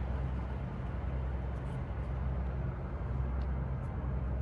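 An engine running steadily, a low, even hum with no change in pitch.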